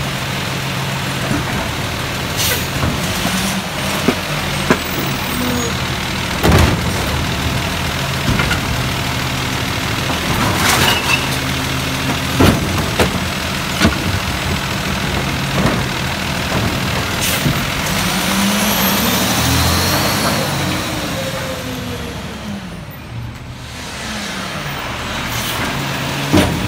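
Peterbilt 320 refuse truck's diesel engine idling as its McNeilus M/A side-loader arm cycles. Plastic carts knock and bang against the arm and hopper a dozen or so times. The engine and hydraulics rise and fall in pitch as they work the arm, about two-thirds of the way through.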